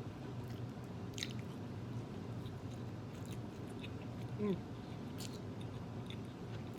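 A person chewing food close to the microphone, with small wet clicks of the mouth. About four and a half seconds in there is one brief falling sound, the loudest moment.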